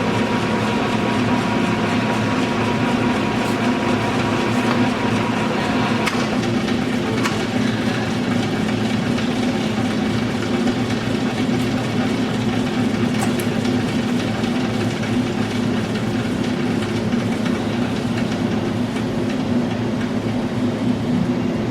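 LeBlond Dual Drive engine lathe running under power, a steady mechanical hum. A higher whine drops out about six seconds in, while the machine keeps running.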